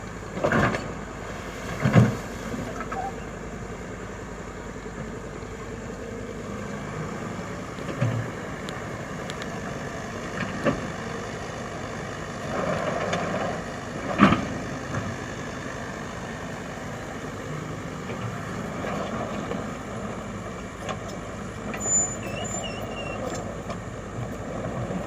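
Komatsu excavator's diesel engine running steadily, with several sudden knocks over it, the loudest about two seconds in and again about fourteen seconds in.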